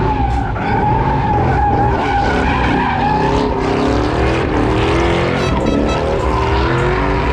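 A car doing a burnout. Its spinning tires squeal in a steady high note while the engine runs at high revs, its pitch rising and falling.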